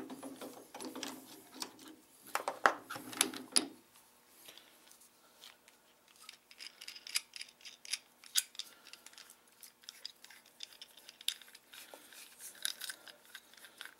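Scattered light metallic clicks, taps and scrapes as a steel hole saw and the drill chuck are handled. A low hum dies away about four seconds in.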